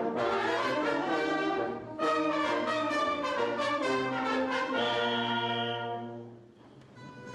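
Live music from a stage performance by a costumed Carnival dance group, many notes sounding together. About five seconds in the music settles on a long held chord that dies away about a second and a half later, and then softer music begins.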